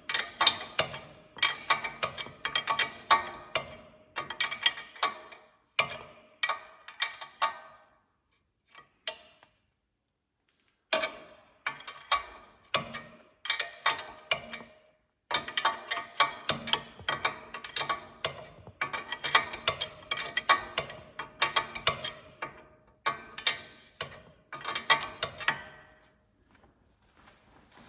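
Ratchet wrench clicking in runs of rapid clicks as the castellated nut on the new lower ball joint stud is run down, with a pause of about three seconds partway through.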